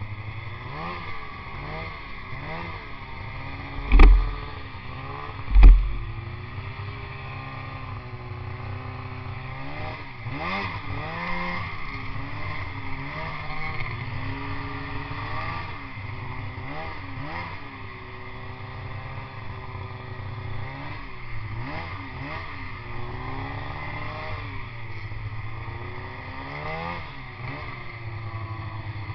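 Snowmobile engine revving up and down over and over as it runs through snow. Two heavy thumps come about four and six seconds in.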